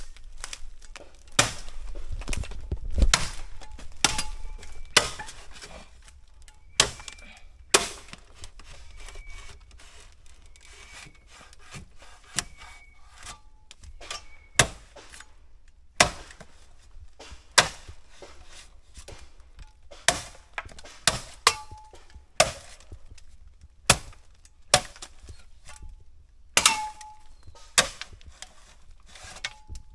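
A machete chopping at bamboo stems at the base of a clump, clearing away the dead stems around the culms: a long run of sharp, woody chops at an irregular pace of roughly one a second, some with a brief ringing note.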